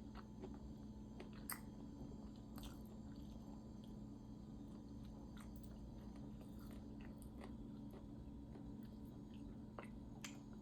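Faint close-up chewing of food, with scattered small mouth clicks and smacks, over a steady low hum.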